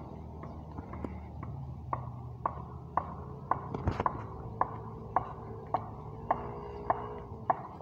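Footsteps walking steadily over wet, muddy ground, about two steps a second, each a short sharp slap.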